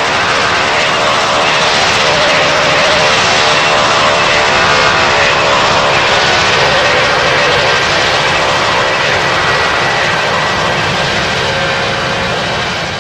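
A fixed-wing airplane's engines running loud as it passes, with faint pitched tones slowly shifting. The sound peaks about four to five seconds in and eases a little near the end.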